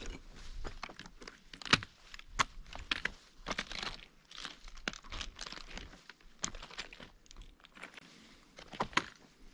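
Footsteps on loose, broken lava rock: irregular crunches and sharp clinks of shifting stones, the loudest about two seconds in and again near the end.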